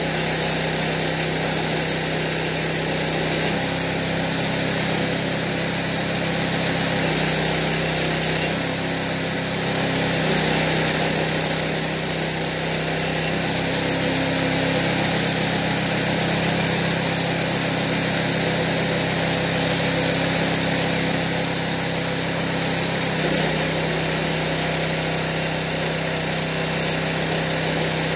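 Motor-driven Delco-Remy car alternator used as a stick welder, running steadily with a constant hum whose note shifts slightly several times, with the stick-welding arc burning on steel pipe at times.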